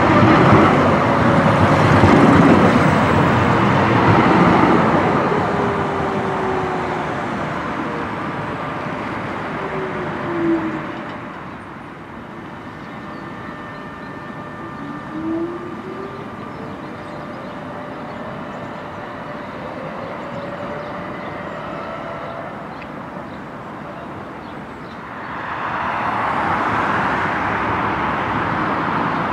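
TFS electric trams on street track: first a tram rolls close past with loud wheel and rolling noise. Then the traction motor's whine falls in pitch as a tram slows into a stop, and rises as it pulls away. Near the end, another tram's rolling noise grows as it approaches.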